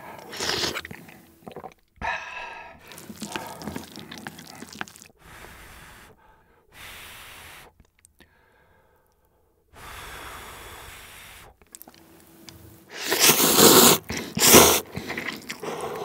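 Close-miked eating of spicy instant ramyeon with king crab: a sip of broth from a spoon at the start, then chewing with pauses. Two loud slurps of noodles come near the end, the loudest sounds here, followed by more chewing.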